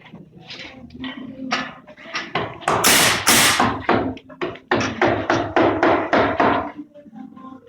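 A quick, irregular run of knocks and taps on a building site, with a short rush of hissing noise about three seconds in, over a steady low hum that stops near the end.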